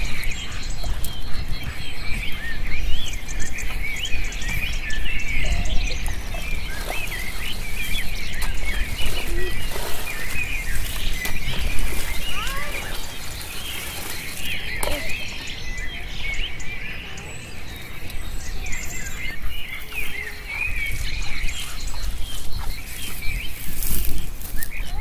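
Many small birds chirping continuously in a dense chorus, over a steady low rumble. Scattered sloshing and splashes of shallow muddy water come from someone wading and groping in it by hand.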